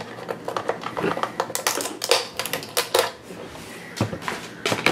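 Molded plastic toy crate being handled and opened by hand: an irregular run of sharp plastic clicks and taps, thickest in the middle.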